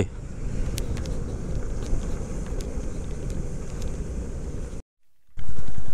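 Motorcycle engine running at low road speed, a steady low rumble with some wind noise on the microphone. Near the end the sound cuts out for about half a second, then comes back louder with an even firing beat.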